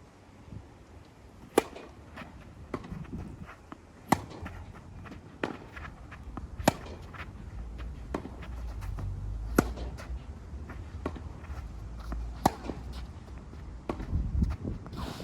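Tennis rally: balls struck hard by rackets about every two and a half to three seconds, with softer hits or bounces between and scuffing footsteps. Wind rumbles on the microphone, strongest in the middle.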